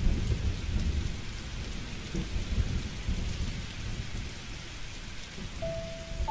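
Steady rain with a low rumble of thunder, loudest at the start and easing off. Near the end a single held musical note comes in.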